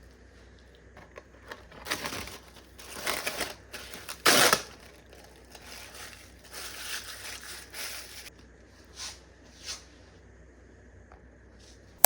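Crinkling and rustling of something being handled, in uneven bursts, the loudest about four seconds in, with two short rustles near the end.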